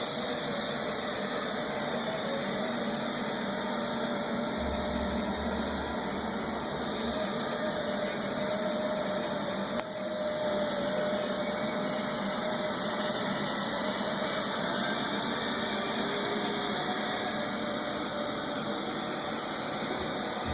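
Neato robot vacuum running a spot clean: a steady whir of its motor and brushes, with a brief dip about ten seconds in.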